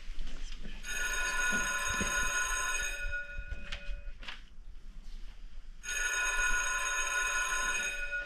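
An electric bell rings twice. Each ring lasts about two seconds, and the rings are about three seconds apart.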